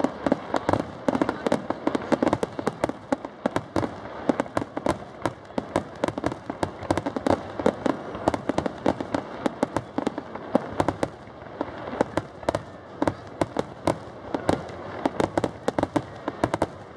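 Fireworks grand finale: aerial shells bursting in a dense, continuous barrage of sharp bangs, several a second, with no break.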